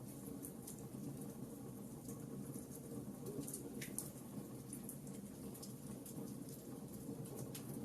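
Wood fire crackling in a fireplace: a steady low rumble of flames with many scattered small pops and snaps.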